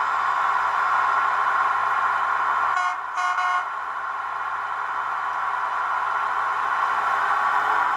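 Roco HO scale Beilhack snow blower model's DCC sound decoder playing a steady diesel engine sound, with two short horn toots about three seconds in.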